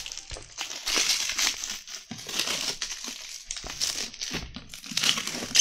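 Thin polythene wrap crinkling and rustling as hands pull it off a paperback book, in irregular crackly bursts.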